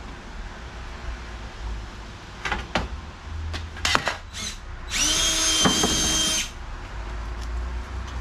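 A few clicks and knocks, then a power drill runs at a steady pitch for about a second and a half, drilling a mounting hole for a light bar into a pickup's front bumper.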